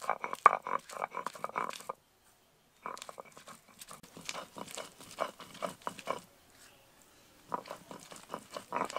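Stone roller grinding pointed gourd seeds and green chillies with a little water on a grooved stone slab (shil-nora), in quick rough back-and-forth strokes of stone on stone through the wet paste. The grinding stops briefly about two seconds in and eases off again around seven seconds.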